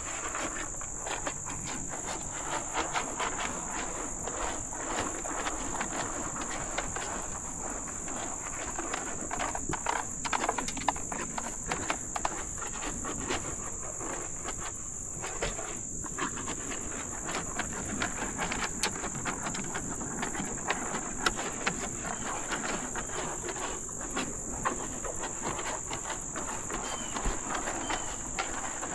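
Cattle eating sweet feed at a trough: many irregular crunches and clicks, over a steady high-pitched insect chorus.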